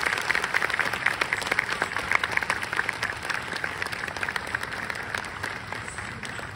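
Audience applauding: dense hand-clapping that gradually thins out and fades.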